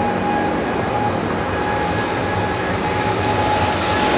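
Boeing 777-300ER's GE90 jet engines running as the airliner rolls along the runway: a steady engine noise with a constant high whine.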